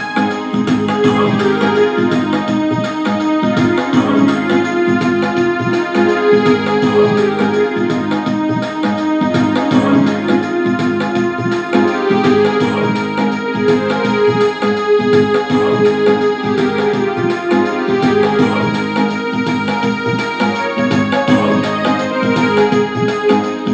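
Casio CTK-6300 electronic keyboard played by hand: a melody over held low accompaniment notes, with a steady beat underneath.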